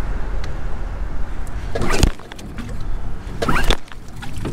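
Yamaha 9.9 outboard motor running on choke, then dying about two seconds in after a loud final burst. A pull of the recoil starter cord near the end starts it running again. The owner takes the stall for the choke being on with the engine already warm.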